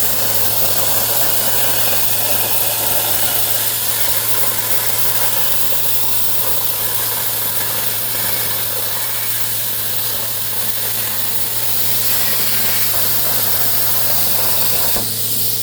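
CNC plasma cutter torch cutting steel: a loud, steady hiss with a constant low hum underneath, dropping away near the end.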